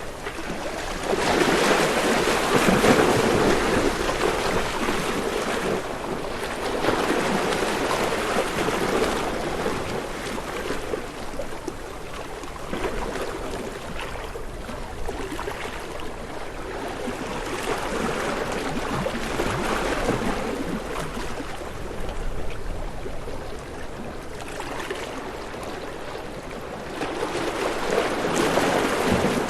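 Ocean waves breaking and washing in the surf, rising and falling in slow swells, loudest a couple of seconds in and again near the end.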